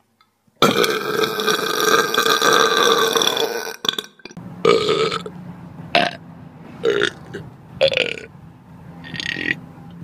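Loud belching: one long burp lasting about three seconds, then a string of five or six short burps.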